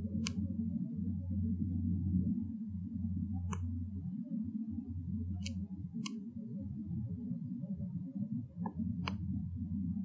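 Outdoor field recording: a steady low rumble with about six sharp, irregularly spaced clicks, the first and loudest just after the start and two close together a little past the middle.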